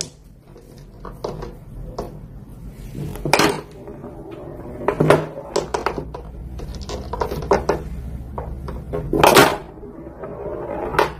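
Small balls on a toy pool table clacking together and knocking against the table's rails as a cat bats them with its paw: a run of irregular sharp clicks, with louder knocks about three, five and nine seconds in.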